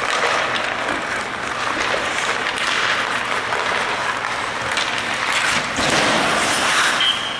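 Ice hockey practice: skates scraping and carving on the ice, with sticks and pucks clacking in quick, irregular strikes. A short, high, steady whistle sounds near the end.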